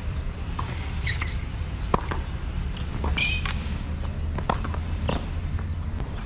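Tennis rally on a hard court: sneakers squeak on the court surface a couple of times, and the ball makes sharp pops as it is struck and bounces. A steady low rumble runs underneath.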